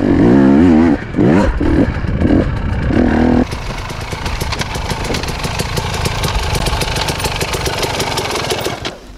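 KTM enduro motorcycle engine revving hard under throttle on a steep climb in second gear. The pitch wavers at first, then comes a few short throttle bursts. About three and a half seconds in, it drops to a lower, rougher run with a fast rattle.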